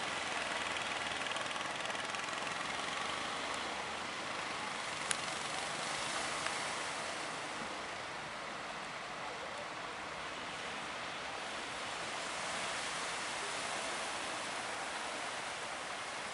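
Steady rushing noise of sea surf, with a single sharp click about five seconds in.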